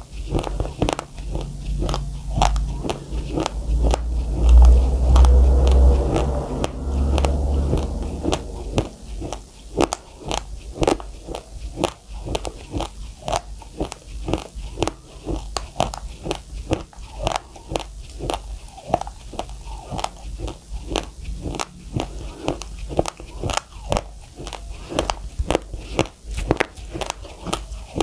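Raw uncooked white rice being crunched and chewed with the mouth closed: a dense run of sharp, gritty crunches several times a second. A low rumble swells in under the chewing between about two and eight seconds in, loudest about five seconds in.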